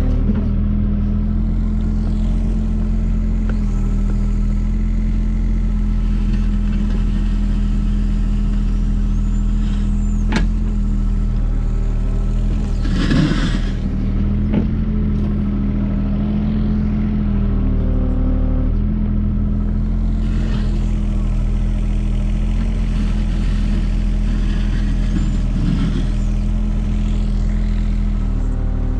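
Mini excavator's diesel engine running steadily, its note shifting a few times as the hydraulics work the bucket. There is a brief harsher burst of noise about thirteen seconds in.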